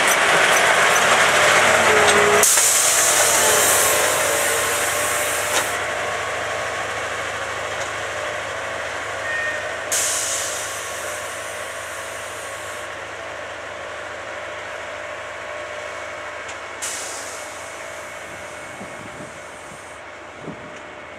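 Railway track tamper machine running steadily, with three bursts of hissing air about seven seconds apart, each lasting a few seconds; the machine's noise slowly gets quieter.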